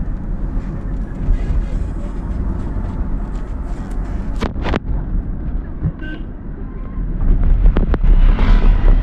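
Steady low rumble of a vehicle on the move, with two sharp clicks about four and a half seconds in and the noise growing louder near the end.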